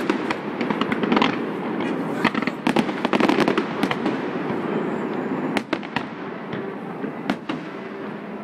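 Fireworks display: a dense, continuous barrage of rapid bangs and crackling shells, thinning out to scattered single reports about five and a half seconds in.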